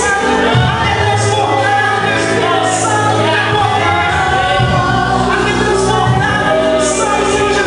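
Live gospel worship band playing with voices singing over it, the bass holding long notes and cymbals washing in now and then, in a large reverberant hall.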